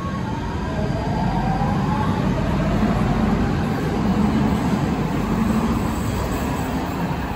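High-floor light rail train pulling out of an underground station: a whine from the drive rises in pitch over the first couple of seconds as it gathers speed, above a steady low rumble from the wheels and cars. It is loudest about halfway through as the cars pass close by.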